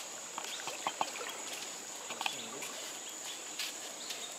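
Insects droning in one steady, high, even tone, with scattered light clicks over it.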